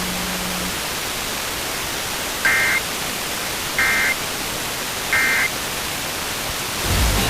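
Emergency Alert System end-of-message code: three short bursts of two-tone digital data, each about a third of a second long and about 1.3 seconds apart, over a steady FM radio hiss. They mark the end of the alert message.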